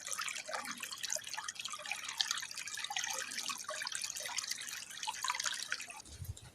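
Water of a small stream trickling and gurgling with many small bubbling splashes, dropping away near the end.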